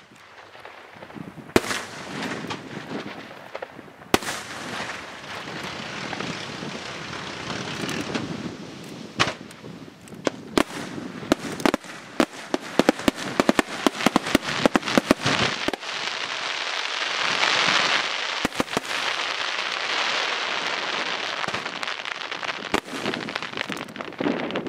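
Aerial fireworks display with shells bursting. At first there are a few scattered sharp bangs, then a rapid string of reports in the middle, and a dense continuous rush of noise through the second half.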